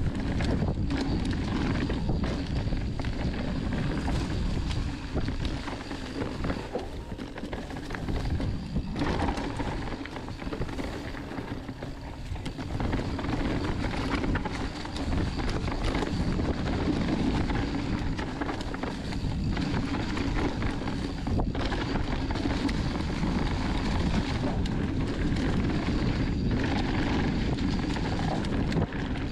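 Mountain bike running downhill over a rough dirt trail: wind rushing over the microphone mixed with the steady rumble and rattle of the tyres and bike on the ground.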